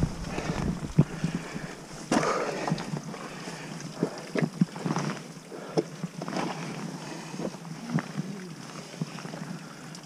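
Scrambling on wet rock: irregular boot knocks and scrapes, several of them sharp, over steady wind noise on the microphone.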